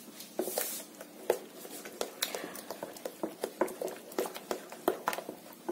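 Wooden spoon stirring a thin, wet batter in a metal bowl, with irregular knocks of the spoon against the bowl, a few a second, among wet slapping and squelching of the batter.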